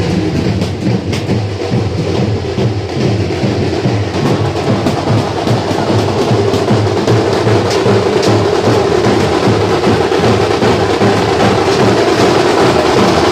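A street drum band beating large double-headed drums and smaller drums in a fast, loud, dense rhythm.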